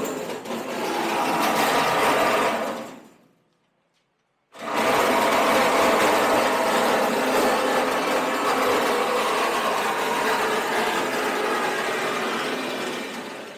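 Power cutting tool running against sheet steel while a truck cab panel is cut, a harsh, buzzing, grinding noise. It stops about three seconds in, starts again abruptly about a second and a half later, and winds down near the end.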